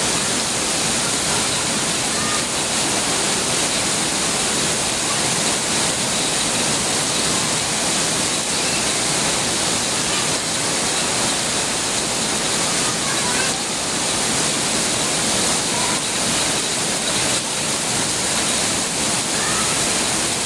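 Heavy rain falling steadily: a constant, even hiss of downpour.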